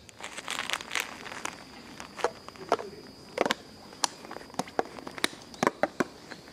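Footsteps on stone paving slabs: irregular sharp clicks and scuffs of shoes, about two a second, growing more frequent after the first couple of seconds.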